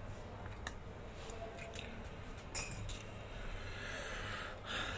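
Light clicks and taps from handling the opened iPad and small repair tools on a silicone bench mat, with a brief scrape near the end, over a steady low hum.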